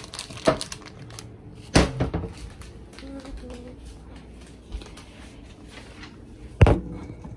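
Kitchen knocks and clatters from cupboard or fridge doors and items being moved while looking for food: a light knock about half a second in, a louder clatter near two seconds, and the loudest knock near the end.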